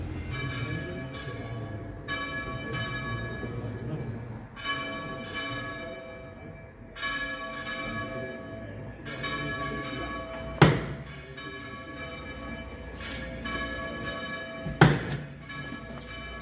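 Bells ringing, a new stroke every second or two with the ringing hanging on between strokes. Two sharp loud bangs cut through, about ten and fifteen seconds in.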